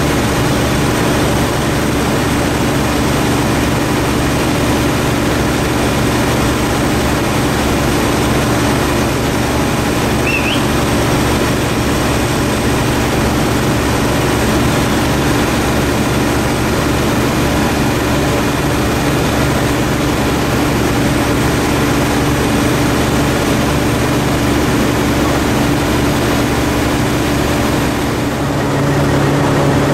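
Fire engines' diesel engines running steadily at pumping speed, a loud drone with a steady low hum, under an even rushing noise from the fire and water streams. A brief high chirp about ten seconds in.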